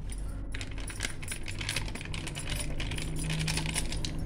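A plastic spice packet crinkling and crackling as chicken kabab masala powder is shaken out of it over raw chicken in a steel bowl, rapid small clicks starting about half a second in, over a steady low hum.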